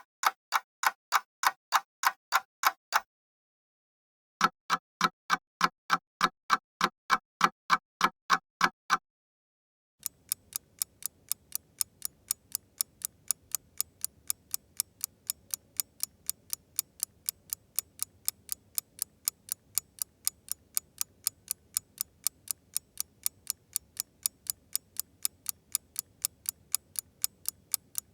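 Clock ticking in a steady, even rhythm, about three sharp ticks a second, with two brief pauses. About a third of the way in, a lighter, quicker tick takes over at about four a second, over a faint background hiss.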